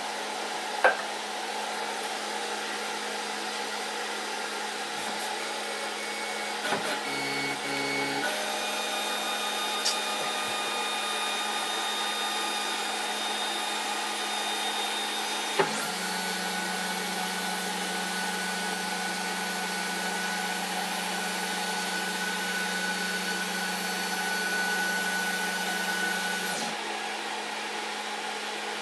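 Snapmaker 2.0 3D printer moving its axes: stepper motors whine in steady held tones that start and stop, the longest stretch in the second half as the toolhead gantry lowers, over a steady fan hum. A few faint clicks come in between.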